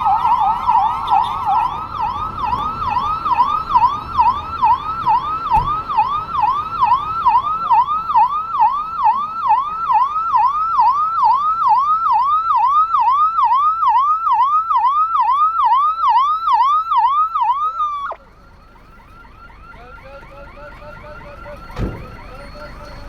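Emergency-vehicle siren in a fast yelp, about two pitch sweeps a second, loud. It cuts off abruptly about 18 seconds in, leaving a much fainter siren sounding on, with a single knock near the end.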